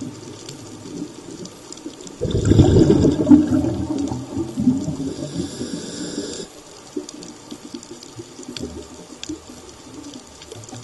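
Underwater recording of a scuba diver's exhaled bubbles from the regulator: a loud bubbling rush starts suddenly about two seconds in and lasts about four seconds. Around it are a steady water hiss and scattered faint clicks.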